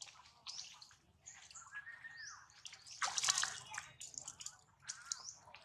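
Water splashing and dripping as wet young macaques climb out of a stone pool, with the biggest splash about three seconds in. Short squeaky calls that arch up and down in pitch come between the splashes.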